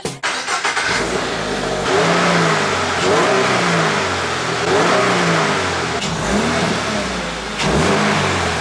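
A 2023 Toyota GR86's 2.4-litre flat-four is revved through a freshly fitted Spec-D catback exhaust. Over the idle come a string of quick throttle blips, each rising and falling in pitch.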